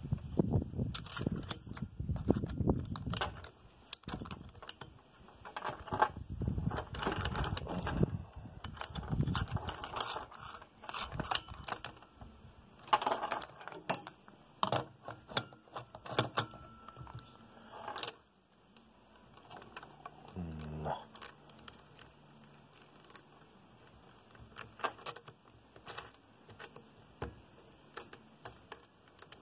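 Steel saw chain links of a Stihl MS 194 T chainsaw rattling and clinking as the chain is handled and fitted around the clutch sprocket and onto the guide bar. The jingling is dense for most of the first half, then gives way to a few scattered clicks.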